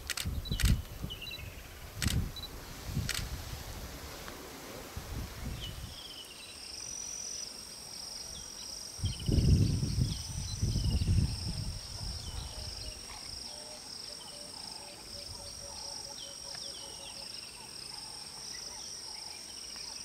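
Camera shutter clicking four times in the first three seconds, with bursts of low rumbling noise. From about six seconds in, a steady high insect drone sets in with repeated short falling chirps, and the loudest low rumble comes about nine to twelve seconds in.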